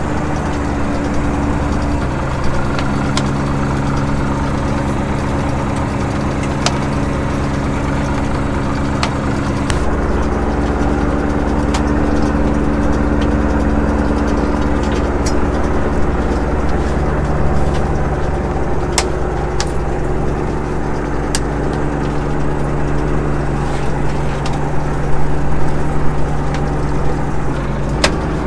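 Fishing boat's engine running steadily, its hum shifting in pitch a few times, with scattered light clicks and knocks from the gear on deck.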